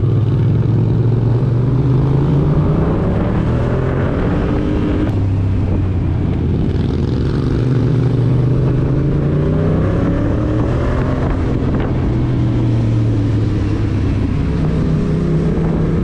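Yamaha MT motorcycle engine running under way, its pitch rising and falling several times as the rider works the throttle.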